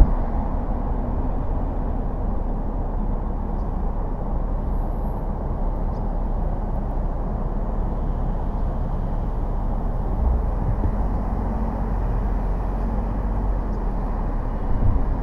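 A car driving: steady low rumble of road and tyre noise, with a few faint ticks.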